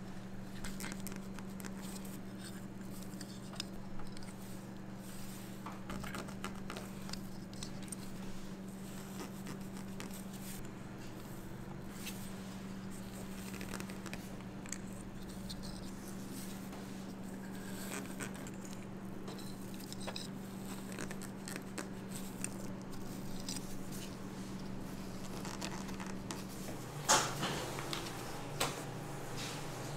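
Light tapping, clicking and handling sounds of food preparation over a steady low hum. The hum stops near the end, where two sharp knocks stand out.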